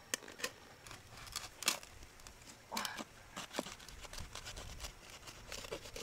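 Freshwater mussel being handled and cut open: irregular sharp clicks and taps of shell and tool, with short wet scraping strokes.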